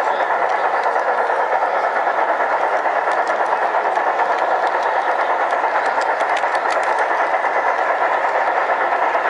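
LGB G-scale model train rolling along brass track: a steady, fast clatter of its wheels on the rails, heard close up from the moving train.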